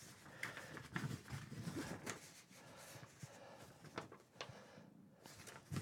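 Sheets of paper plans being handled and shuffled: faint rustling with several soft ticks and taps.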